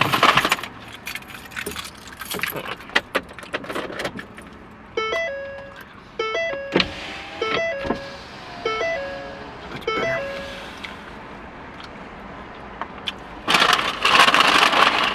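Keys on a lanyard jangling and clinking. A tinkling electronic tune of short clear notes follows for several seconds. Near the end a loud rush of air starts, the car's air-conditioning fan coming on against the heat.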